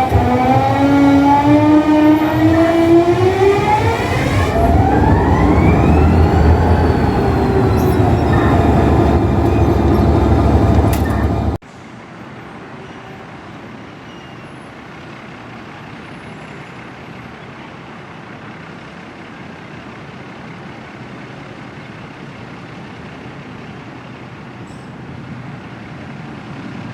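A loud wailing siren of several tones, its pitch rising and climbing steeply about five seconds in, that cuts off abruptly about twelve seconds in. A steady, much quieter rumbling noise follows.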